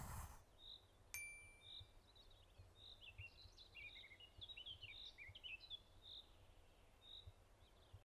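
Faint forest birdsong: one bird repeats a short high note about once a second while another sings a quick warbling phrase in the middle. A single bell-like ding rings out about a second in and fades.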